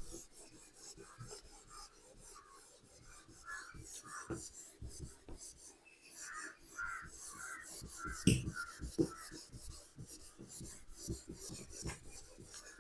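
An eraser rubbed back and forth over a writing board in a rapid run of scrubbing strokes, with squeaky rubs and a couple of louder knocks a little past the middle.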